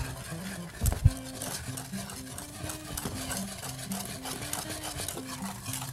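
Wire whisk beating a thickening roux-and-broth sauce in a stainless steel pot, its wires clicking and scraping rapidly against the pot. Two dull knocks come about a second in.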